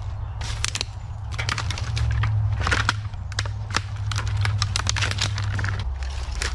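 Footsteps crunching through dry leaf litter and snapping fallen dead bamboo canes, a quick run of sharp cracks and crackles, over a steady low rumble.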